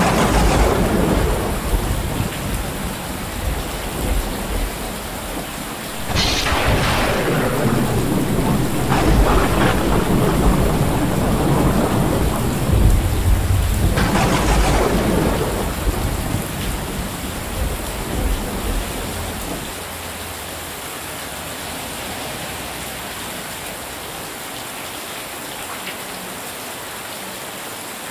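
Heavy rain pouring steadily, with rolling thunder. Peals break at the start and about 6, 9 and 14 seconds in, and the rumble dies away after about 20 seconds, leaving only the rain's hiss.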